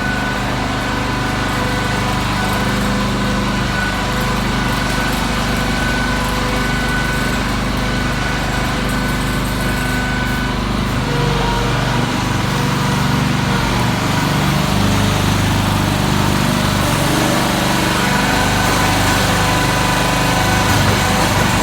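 Small gasoline engines of motorized concrete buggies running steadily, with the engine note shifting about halfway through as the throttle changes.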